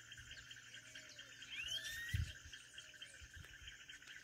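Steady, fast-pulsed chirring of insects, with a few rising bird whistles about one and a half to two seconds in and some faint, soft, low arched notes. A short, soft, low thump comes about two seconds in.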